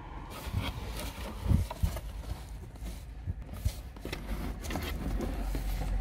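A few dull knocks and scrapes on a cardboard box, over a low rumble.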